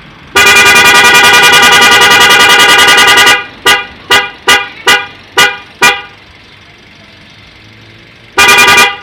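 Loud aftermarket 'prikitiw' electric car horn sounding one long blast of about three seconds, then six short toots in quick succession, then another blast starting near the end.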